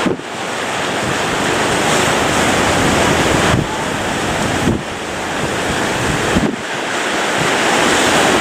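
Heavy surf crashing, with strong wind buffeting the microphone in gusts.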